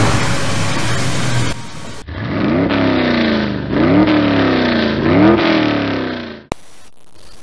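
Sports car engine revved three times: each time the pitch shoots up sharply and then slides back down. Before it, a heavy truck engine runs rough and loud, and the revving cuts off with a click.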